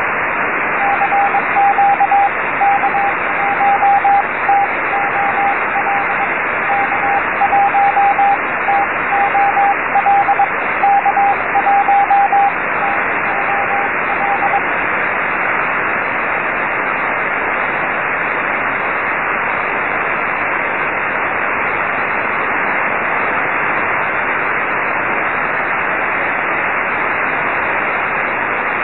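Morse code (CW) signal from a distant amateur station on the 6-metre (50 MHz) band, a single keyed tone over steady receiver hiss. The tone fades out about halfway through, leaving only band noise.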